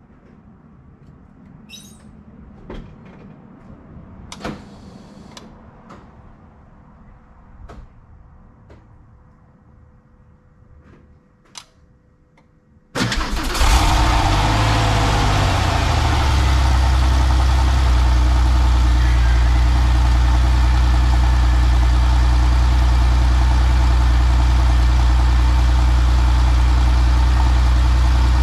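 1997 Porsche 911 (993) Cabriolet's 3.6-litre air-cooled, dry-sump flat-six, cold-started: a few faint clicks and knocks, then about halfway through the engine fires abruptly and loudly and settles within a few seconds into a steady idle.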